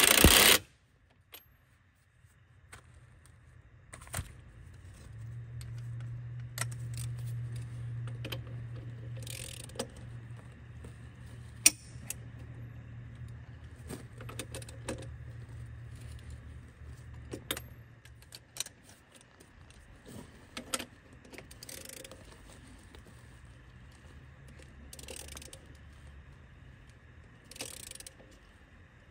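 Hand tools working the axle-flange nuts on a bus wheel hub: scattered metal clinks and ratchet clicks as wrench and socket go on and off the nuts, after a short burst from a cordless impact wrench at the very start. A low hum runs underneath for much of the time.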